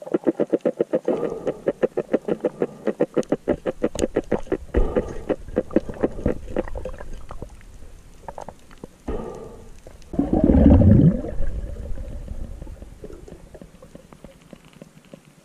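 Underwater, a freshly speared trevally grunts in a fast train of knocking pulses, about ten a second, for several seconds. About ten seconds in comes a louder, brief rumble that falls in pitch.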